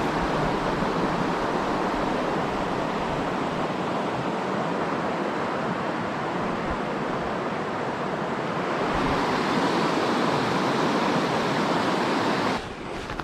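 River water rushing over boulders: a steady rush that grows a little brighter about nine seconds in and cuts off suddenly near the end.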